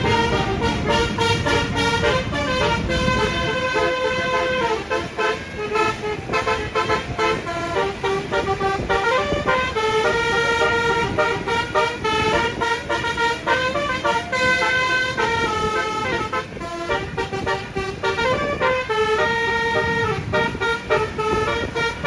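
Bus telolet horn, a Basuri multi-tone horn, playing a tune of held notes that step from pitch to pitch. Engine and road rumble lie underneath, heaviest in the first few seconds.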